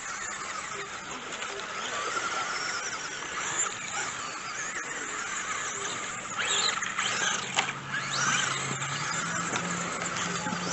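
Several Traxxas Bandit electric RC buggies racing on dirt, their motors giving high whines that rise and fall in pitch as they speed up and slow down. A sharp knock about seven and a half seconds in.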